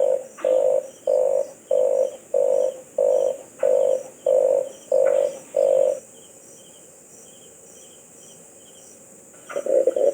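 Red collared dove calling: a run of about ten short, rough coos at roughly one and a half a second, stopping about six seconds in. After a pause the coos start again, quicker, near the end. Faint high chirps from another bird sound during the pause.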